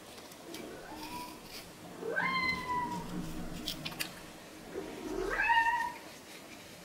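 Domestic cat meowing twice: two drawn-out meows about three seconds apart, each rising and then held, the second louder. A few faint clicks fall between them.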